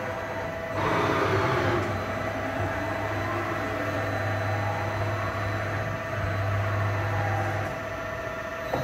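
Takisawa VMC-40 CNC vertical machining centre running, a steady mechanical hum with a constant tone, and a brief hiss about a second in.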